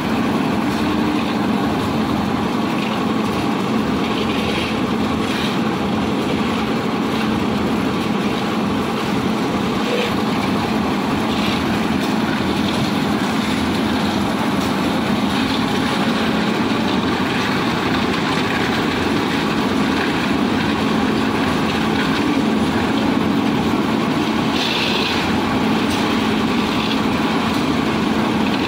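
Portable concrete mixer with a hoist lift running steadily on its engine, the drum turning, with a few faint short clatters now and then.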